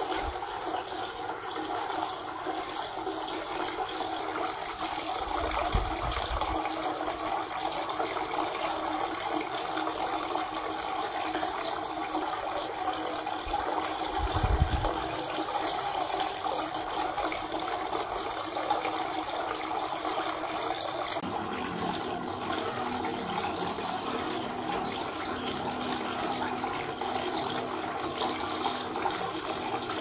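Water from a cement cascade fountain falling from stacked pots into the basin pool: a steady splashing trickle. Two short low thumps come about six and fifteen seconds in.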